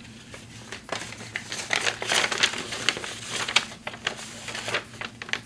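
Handling noise of paper or packaging: irregular crinkling and rustling with small clicks and taps, busiest from about a second and a half in until near the end.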